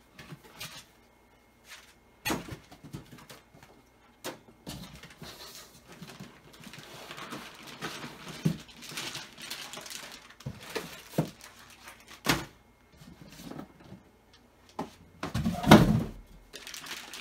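Packaging being handled: foam packing pieces knocked and lifted out of a cardboard box, a stretch of plastic bag rustling and crinkling, and scattered knocks. A loud thump near the end is the heaviest sound.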